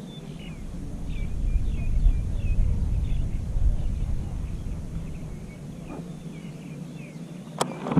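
Birds chirping in short repeated calls over a low rumble that swells for a few seconds, with a sharp click near the end.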